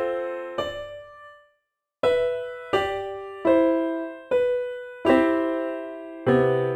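Keyboard music: single piano notes and chords struck about every three quarters of a second, each left to ring and fade. About a second and a half in, the sound cuts to silence for about half a second before the notes resume.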